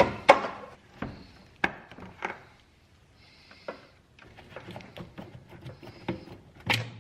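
Scattered sharp clicks and taps of hard plastic, with a couple of brief rustles, as a headlight bulb and socket are worked loose from a plastic headlamp housing by hand.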